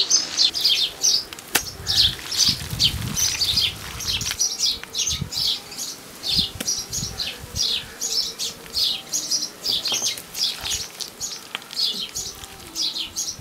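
Small birds chirping continuously, a steady string of short, high chirps at about two to three a second.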